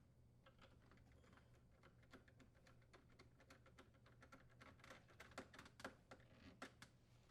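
Faint, irregular small clicks and taps of a screwdriver and plastic refrigerator parts being handled, a few slightly louder ones about five to six seconds in.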